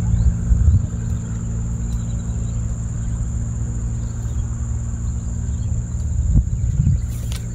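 Steady outdoor ambience: a continuous high-pitched insect drone over a low, steady hum, with a few low thumps about a second in and again near the end.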